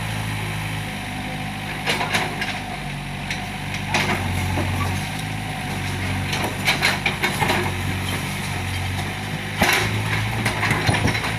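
Doosan 55W wheeled excavator's diesel engine running steadily, its note swelling now and then, with scattered knocks and clatter of the bucket and broken bricks, coming more often near the end.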